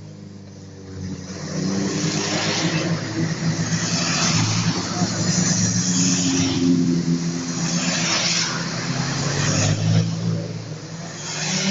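Classic cars driving past one after another on a wet road. Their engines run, and a hiss of tyres on the wet asphalt swells as each car goes by. It starts quieter and picks up about a second and a half in.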